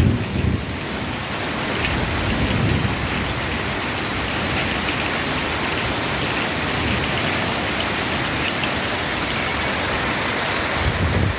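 Heavy rain with hail pouring down steadily, with brief low rumbles near the start and again near the end.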